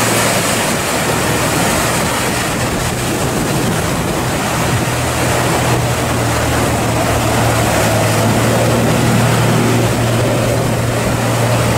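A small fishing boat's engine running with a steady low hum that grows a little stronger about halfway through, under the continuous rush of breaking surf and spray as the hull crosses the waves.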